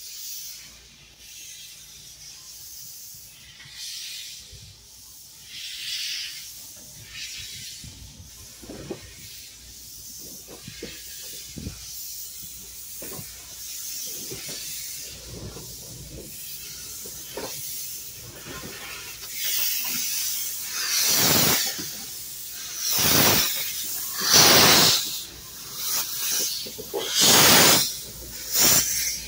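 1937 Porter 0-4-0T narrow-gauge steam locomotive starting off slowly, with steam venting at the cylinders. A quieter hiss with scattered clicks gives way in the last third to loud bursts of steam about every one and a half to two seconds.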